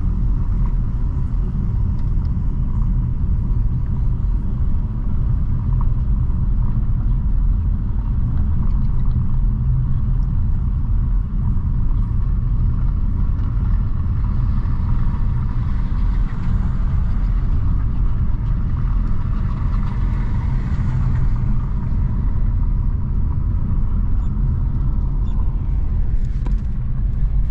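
Car being driven, heard from inside the cabin: a steady low rumble of engine and tyre noise, with a little more hiss in the middle stretch.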